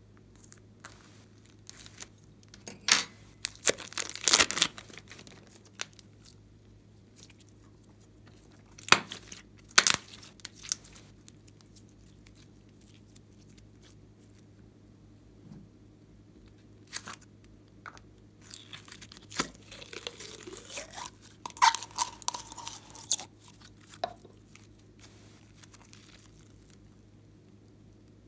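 Sticky slime being squeezed out of a plastic piping bag and handled, giving clusters of crackling, popping and tearing sounds with quiet stretches between, and a brief squeaky whistle partway through as air escapes.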